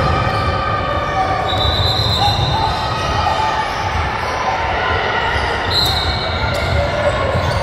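Basketball game sounds in a large gym: a basketball bouncing on the hardwood court, with indistinct voices of players and spectators throughout.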